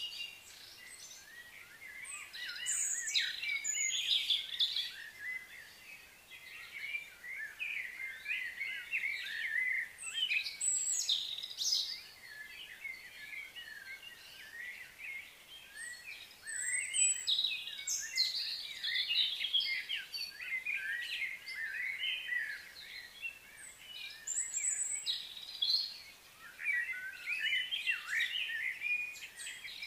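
Birds chirping and singing in repeated high-pitched bursts a few seconds long, several calls overlapping, with short lulls between.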